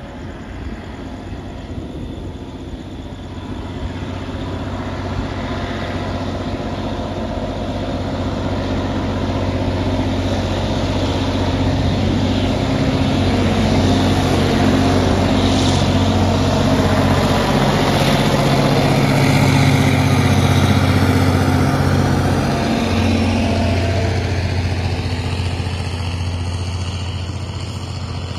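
Diesel engine of an approaching EMD G22-U diesel-electric locomotive at the head of a freight train: a steady, low engine drone that grows louder over about twenty seconds as it nears, then eases a little. Wheel and rail noise rises with it as the train reaches the bridge.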